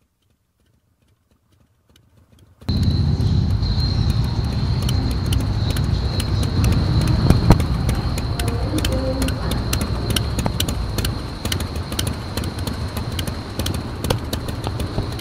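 Harley-Davidson motorcycle's V-twin engine idling, cutting in suddenly about two and a half seconds in after silence and then running steadily, with irregular clicks and a steady high whine over the low engine rumble.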